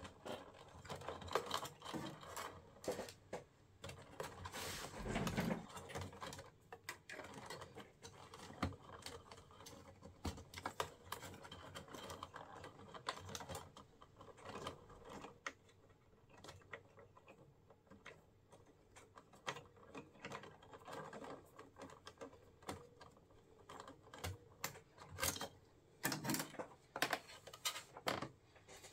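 Irregular clicks, taps and rustling of hands handling wires and plastic parts inside an opened boombox, with busier clattering near the start and end.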